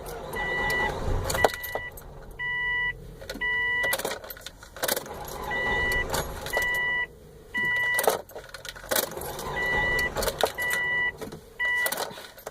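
A 2004 Subaru Forester's dashboard warning chime beeping, about half-second beeps roughly once a second in groups of two or three, over keys jangling and scattered clicks.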